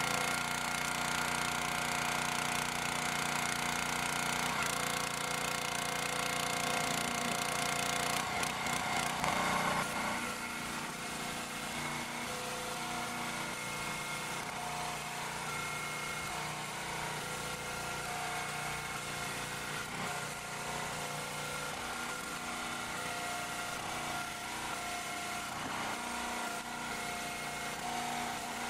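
The 6.5 PS OHV single-cylinder petrol engine of a Jansen HS-22A62 log splitter running steadily, driving the hydraulic pump while logs are split. It is a little quieter after about ten seconds.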